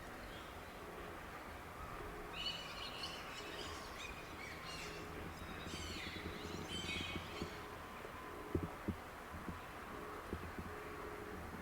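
Birds chirping in short bursts over a steady low background hum, with a couple of brief knocks about eight and a half seconds in.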